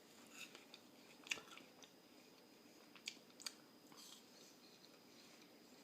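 Faint, sparse clicks and taps, a few over several seconds with the sharpest about a second and a half in, from a knife working through a soft, mushy rotten apple.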